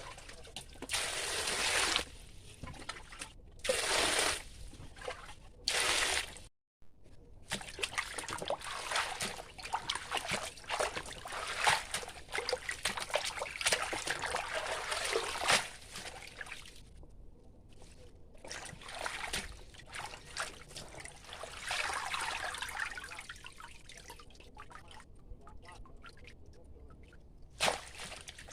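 Water trickling and splashing in three short spells, then longer stretches of splashing with many small clicks.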